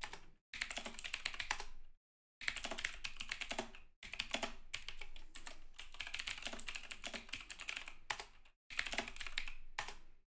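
Typing on a clicky mechanical computer keyboard: several bursts of rapid keystrokes separated by brief pauses, stopping just before the end.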